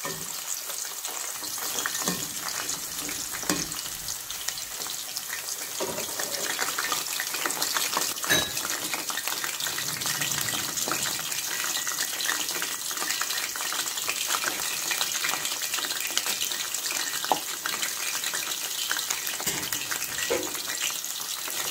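Green capsicum (bell pepper) rings deep-frying in hot oil: a steady, dense sizzle and crackle, with a few sharp clicks scattered through it.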